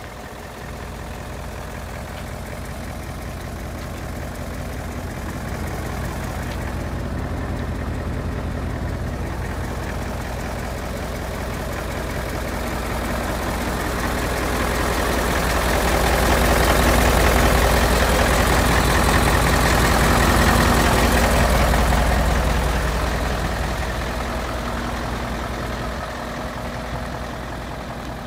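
Mitsubishi Fuso 8DC11 V8 diesel engine idling steadily. It grows louder through the middle and eases off again toward the end.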